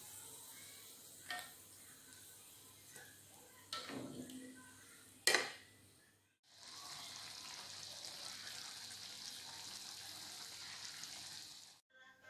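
Chicken frying in a pan for ayam masak habang. A faint sizzle comes with a few knocks of a utensil against the pan, one sharp knock the loudest. After a brief break a steady, even sizzle follows, then cuts off abruptly.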